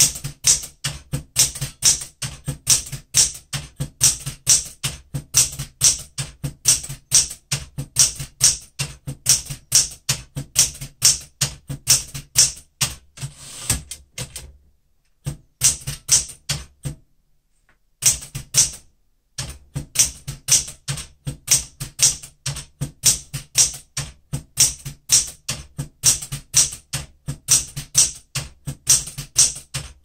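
Smith-Corona Galaxie Deluxe manual typewriter being typed, its typebars striking one after another at a steady pace of about three strokes a second. There is a pause of a few seconds about halfway. This is a letter test: each key is typed in turn to check that every key strikes and that the vertical alignment is correct.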